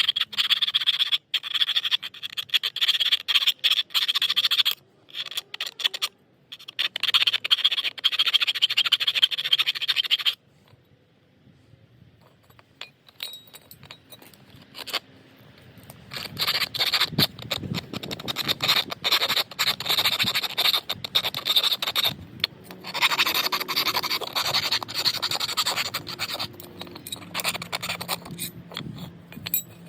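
Hand file scraping back and forth in rapid strokes to open up a hole for a bonnet release cable. It comes in stretches of several seconds, with a longer pause about ten seconds in.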